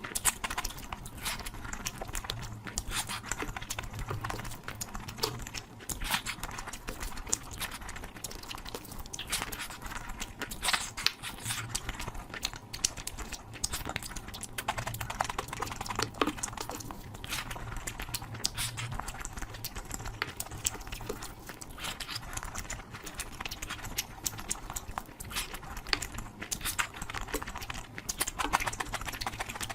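Close-miked eating sounds from a curry mukbang: wet chewing and lip smacks, a dense, irregular run of clicks and smacks with no pause.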